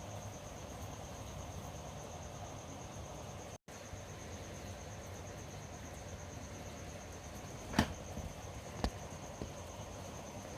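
Chicken pieces frying in butter in a pan, a low steady sizzle with a high steady whine over it. Two sharp knocks come in the second half, like a utensil against the pan.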